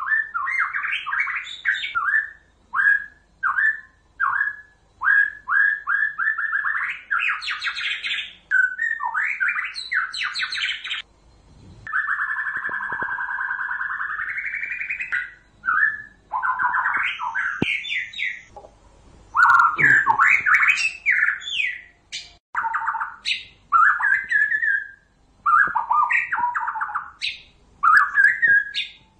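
White-rumped shama song used as a trapping lure: a run of quick, varied whistled and chattering phrases with short pauses between them. About twelve seconds in comes one long held note that rises in pitch toward its end.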